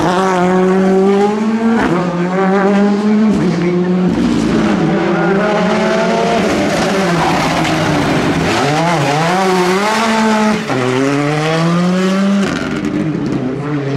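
Rally car engines revving hard under acceleration, the pitch climbing and then dropping back in steps with each gear change, several times over, with some tyre squeal.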